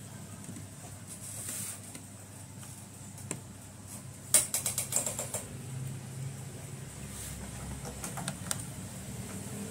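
Screwdriver backing out the small screws from the plastic bottom case of an ASUS X200CA laptop: scattered light clicks and taps, with a quick run of about half a dozen sharper clicks around four and a half to five and a half seconds in.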